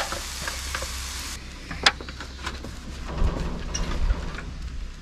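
Sausage gravy cooking in a skillet on a gas side burner: a steady hiss of flame and simmering, with a sharp clink a little under two seconds in.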